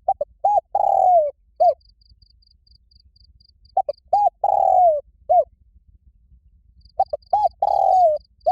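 Spotted dove cooing loudly, a male's challenge call. Each phrase is two short coos, then a long drawn coo that falls in pitch at its end, then a short closing coo. The phrase comes three times, about every three and a half seconds.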